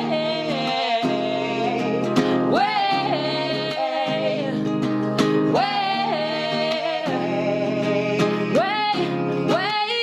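A woman singing over an acoustic guitar, holding long notes that slide and waver in pitch.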